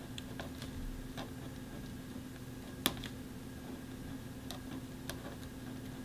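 Pen writing on a paper journal page: faint ticks and taps of the pen nib, with one sharper click about three seconds in.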